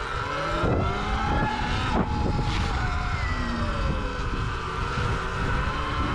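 Sur-Ron electric dirt bike riding, its motor whine rising and falling in pitch as the speed changes, over a heavy low rumble. A few sharp knocks come about one and two seconds in.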